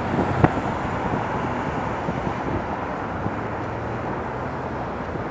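Steady hum of distant city traffic heard outdoors at night. A single sharp click comes about half a second in.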